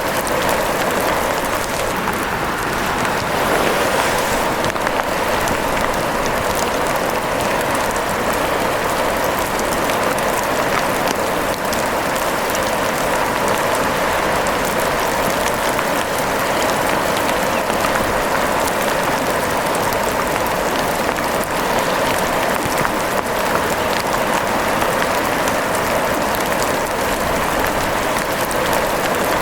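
Steady rain: an even hiss peppered with many small, sharp drop ticks, unchanging throughout.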